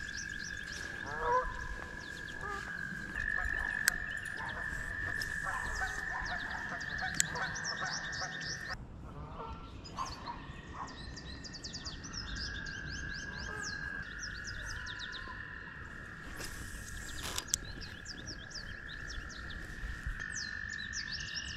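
Breeding chorus of spawning frogs and toads. One steady high-pitched call holds for seconds at a time, breaks off about nine seconds in and then resumes, while many short, quicker, higher calls from other frogs sound over it.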